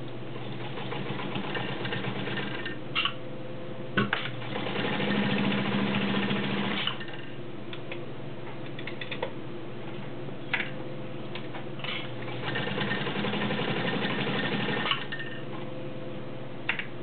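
Kenmore Model 84 all-metal sewing machine stitching through six layers of denim with a size 18 needle, running in two stretches, the first about seven seconds long and the second a shorter one late on. A few sharp clicks come between them.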